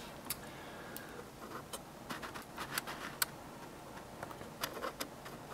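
Small metal parts of a disassembled folding knife clicking and tapping as they are handled and set down: a dozen or so faint, irregular light clicks.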